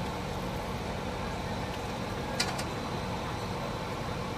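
Steady engine or machinery noise, a low hum under a rushing layer, with two light clicks about two and a half seconds in.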